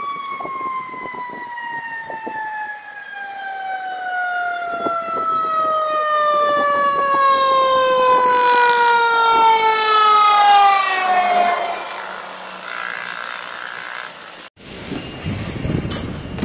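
Fire truck siren sounding one long wail that falls slowly in pitch, growing louder as the truck approaches, and ending about twelve seconds in.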